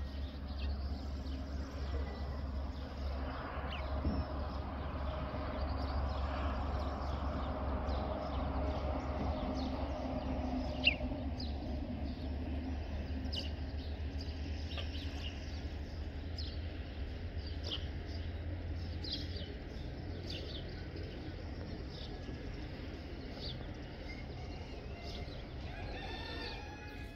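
Rural outdoor ambience: domestic chickens and short, scattered bird chirps over a steady low rumble.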